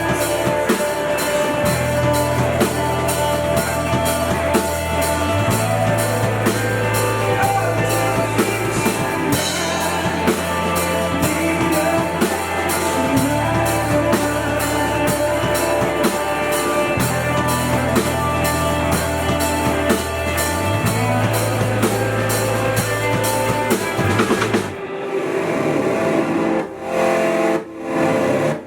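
A live band playing: a drum kit keeps a steady beat over electric guitar and a bass line that moves to a new held note every couple of seconds. Near the end the drums drop out, leaving held guitar tones.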